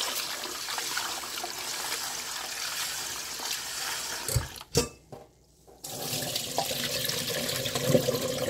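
Kitchen tap water running into a stainless steel bowl of shucked oysters as they are swished by hand to rinse them. Two knocks come about halfway through, then a brief quiet before the water sound picks up again as the oysters and water are tipped into a mesh strainer.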